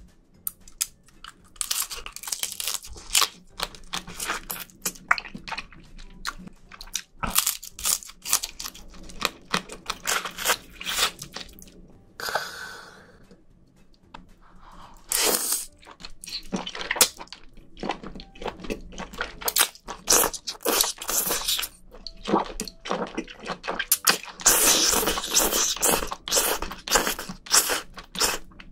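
Close-miked eating of a seafood stew: crab shell cracking and crunching between the teeth, with wet chewing, in irregular clusters of sharp crunches.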